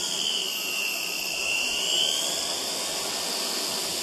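JetCat turboprop engine of a radio-controlled Pilatus PC-6 model running as the plane taxis, giving a steady high whine over the rush of the propeller. The whine sags slightly in pitch and comes back up within the first two seconds.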